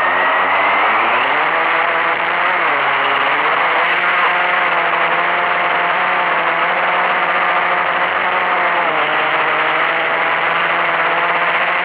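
Blade 350QX quadcopter's electric motors and propellers whirring close to its onboard camera, rising in pitch over the first few seconds as it throttles up and lifts off. The whine then holds steady in hover and dips briefly about nine seconds in.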